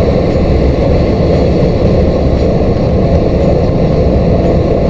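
Steady drone inside a lorry cab at motorway speed: the truck's engine humming low under tyre and road noise on a wet road.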